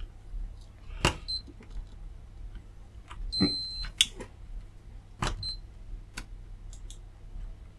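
Multimeter on continuity mode giving short high beeps, three times, the middle one the longest, among sharp clicks of the probe tips on the circuit board. The beeps are false continuity from the probes slipping off the transistor legs onto a metal heatsink bar, not a short.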